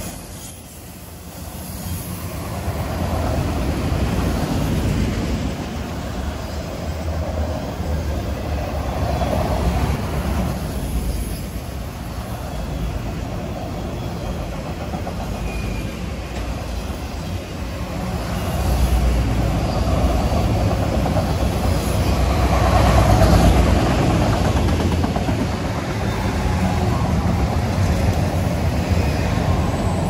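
Freight train of autorack cars rolling past on the track: a steady rumble of steel wheels on rail that swells and eases as the cars go by.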